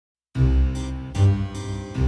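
Background music cuts in abruptly about a third of a second in, with a deep bass and held chords that change about a second in.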